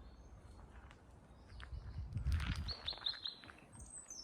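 Wild songbirds chirping in the woods, with a quick run of four short high notes in the second half, over a low rumble a little past the middle.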